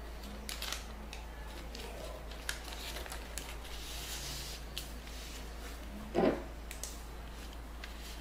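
Origami paper rustling and crinkling as it is folded and opened out by hand, in short scattered crackles, with one louder bump about six seconds in.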